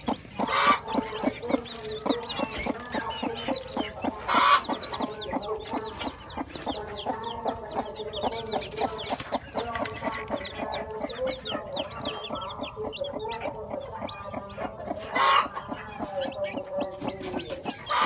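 A broody hen clucks steadily on the nest while newly hatched chicks peep rapidly in high, short chirps. A few louder calls stand out: about half a second in, at about four seconds, and near fifteen seconds.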